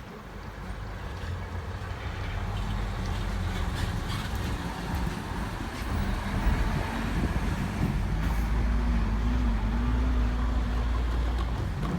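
Keikyu electric train approaching, a low rumble growing steadily louder, with a motor hum coming in about two-thirds through and a few faint clicks from the rail joints.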